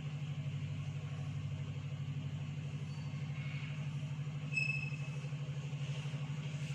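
Steady low hum with a slight regular pulsing, and faint chalk strokes on a blackboard, with a brief high squeak about four and a half seconds in.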